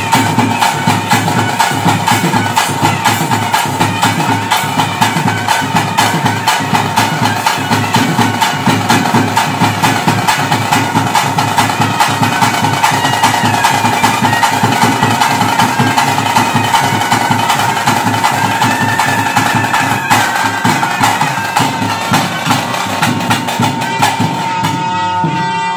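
Traditional South Indian wind ensemble: a shehnai-type double-reed pipe playing a wandering melody over a steady held drone note, with fast, even drum beats underneath.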